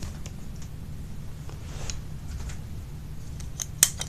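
Low rumble of a handheld camera being carried, with a few faint ticks, then one sharp click near the end as a lamp switch is turned off.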